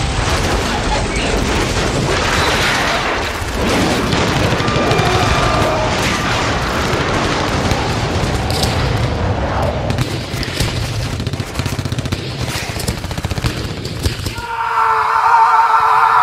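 Battle sound effects: dense, rapid gunfire and explosion booms over a low rumble, with music underneath. About fourteen and a half seconds in this cuts off abruptly and a high wavering sound takes over.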